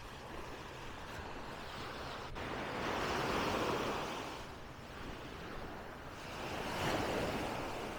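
Small sea waves washing up onto a sandy beach: a steady surf hiss that swells twice, once in the middle and again near the end.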